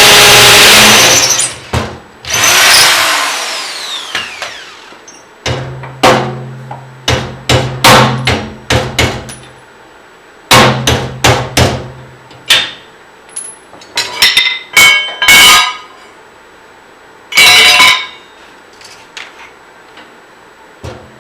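A power drill running loudly, stopping about a second in, followed by a string of sharp knocks and clatters of tool-on-metal work in a garage shop, some over a low steady hum.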